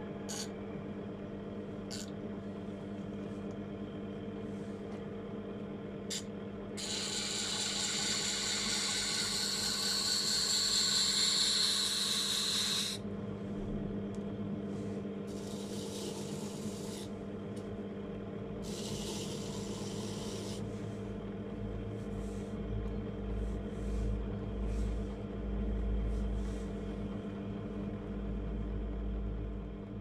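Homemade bench grinder powered by a washing-machine motor, humming steadily as it spins a grinding wheel and a wire brush wheel. Metal pieces are pressed against the spinning wheels, giving a loud scraping hiss from about 7 to 13 seconds in and shorter bursts later, one of them on the wire brush.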